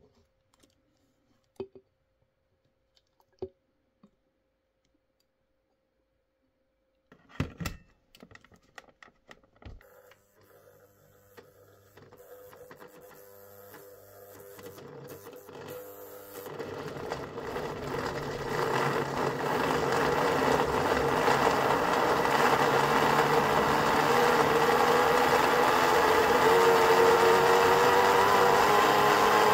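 A few clicks, then a clatter as the jar is fitted to the base. About ten seconds in, a Breville personal blender's motor starts slowly at low voltage, blending strawberries and milk. It grows steadily louder and rises in pitch as its supply voltage is raised.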